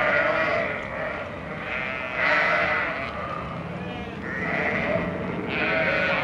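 A large flock of sheep bleating, many calls overlapping one after another.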